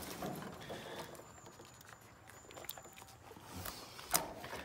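Great Pyrenees dogs' claws scratching and tapping on a wooden deck and railing as they scramble about, with one sharp knock about four seconds in.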